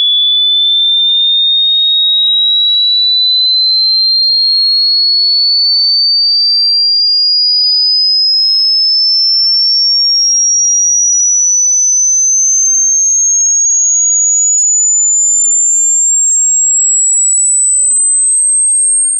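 Electronic sine-wave frequency sweep for a hearing test: a single pure, high-pitched tone gliding slowly and evenly upward in pitch, growing shriller throughout.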